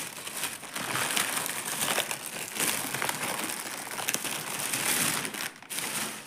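Plastic packaging crinkling and crackling as a poly mailing bag is handled and emptied. The crinkling eases off near the end.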